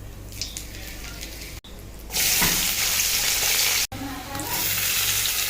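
Food sizzling in hot oil in a pan. The sizzle starts suddenly about two seconds in, is loudest for the next two seconds, then carries on more quietly.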